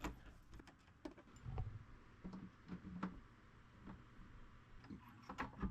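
Faint, scattered small clicks and a few soft knocks as door-handle and latch hardware is handled and fitted into a cabin door.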